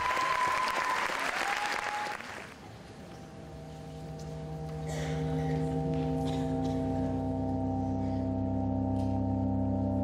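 Audience applause that dies away about two and a half seconds in, followed by a low, sustained droning chord of music that swells in and holds steady. A few faint clicks sound over the drone.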